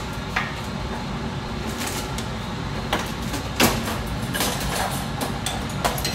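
Kitchen drawer slid open and utensils clinking and knocking as someone rummages through them: a scattering of short sharp clicks over a steady low hum.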